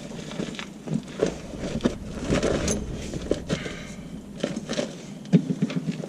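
Irregular clinks, knocks and scrapes of metal suspension hardware and tools being handled while a spacer and nut are fitted, with a sharper knock about five seconds in.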